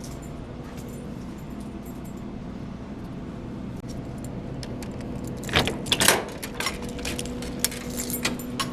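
A bunch of keys jangling and clicking, with the loudest rattle a little past halfway and lighter clinks after it, over a steady low hum.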